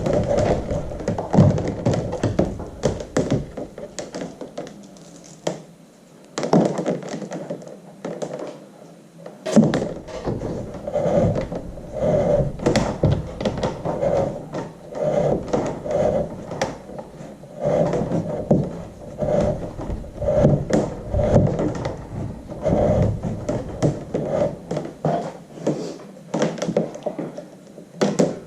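Hands handling the heading sensor cable and fittings against the kayak hull: an irregular run of knocks, thunks and scrapes throughout.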